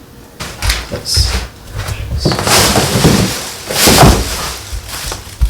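Knocks and scraping as a large flat-screen TV is handled against a metal wall mount: several sharp thuds, with a longer scrape between about two and a half and four seconds in.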